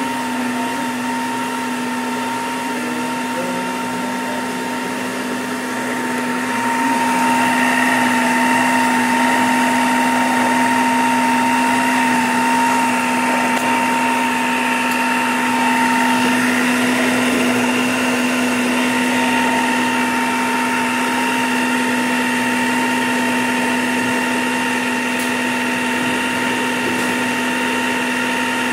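Multi-Chef food processor motor running steadily at speed 4, whipping three eggs in its bowl: a steady motor whine that gets a little louder about seven seconds in.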